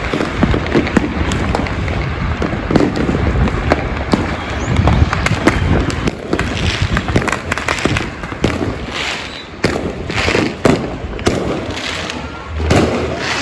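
Many fireworks and firecrackers going off together: a dense, continuous crackle of bangs that thins into louder, separate sharp cracks about halfway through.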